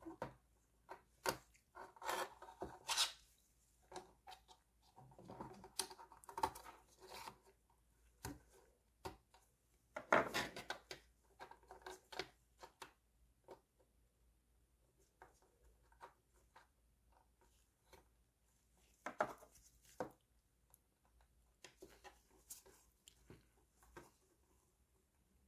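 Faint, irregular clicks, scrapes and rubs of small plastic model-kit parts being handled and worked by hand, with a louder short rasp about ten seconds in.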